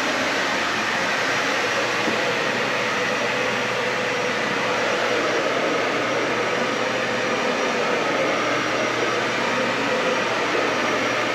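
Dyson Ball Animal 3 upright vacuum cleaner running steadily while vacuuming carpet.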